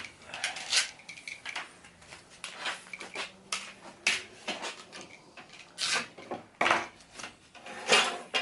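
Screen-door track and track-protector pieces handled on a workbench: irregular light clinks and knocks of hard parts set down and picked up, with a few sharper knocks near the end.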